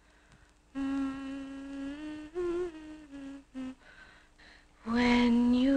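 A woman humming a slow lullaby tune in long, held notes with short breaks, growing much louder about five seconds in.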